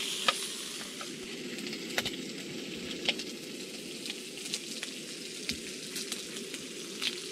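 Bacon sizzling steadily in a frying pan, with sharp clicks now and then.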